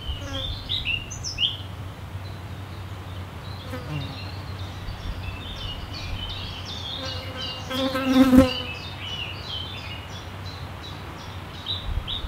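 Forest birds chirping, short high notes throughout over a steady low hum. About eight seconds in, an insect buzzes loudly for under a second, the loudest sound.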